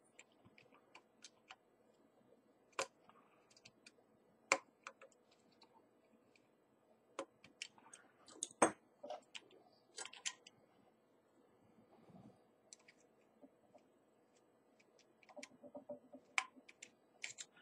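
Small sharp metallic clicks and taps from a jeweller's screwdriver and the Zenit E's metal camera body as a tiny stopper screw is turned out. The clicks come irregularly, with a few louder ones about 3, 4.5, 8.5 and 10 seconds in.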